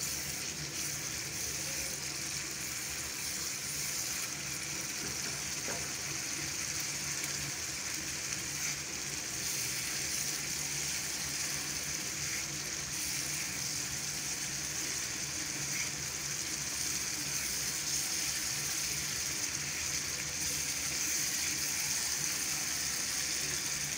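Onion-tomato masala sizzling in hot oil in a nonstick frying pan as it is stirred: a steady hiss. The masala is being fried down (bhunai) until cooked through.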